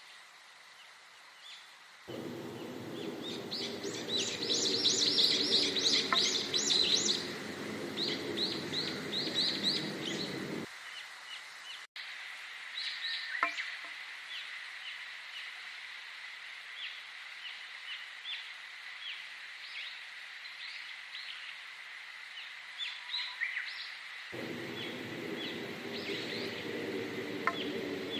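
Many small birds chirping and twittering, with dense rapid runs of high chirps in the first third. Beneath them a low droning layer cuts in and out abruptly, about two seconds in and again near the end, where separate nature recordings are spliced together.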